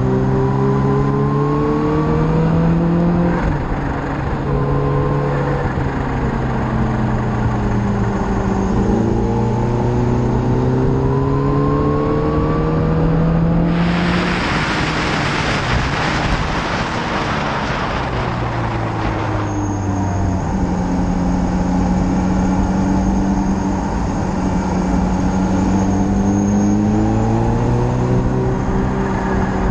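Motorcycle engine heard from an onboard camera, its revs rising and falling through the bends. For about five seconds past the middle a loud rush of wind noise covers it.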